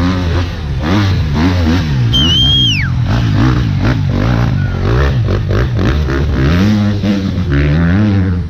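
Enduro dirt bike engine revving up and down again and again as it works over rocky ground. About two seconds in there is a short, high whistle that drops in pitch at its end.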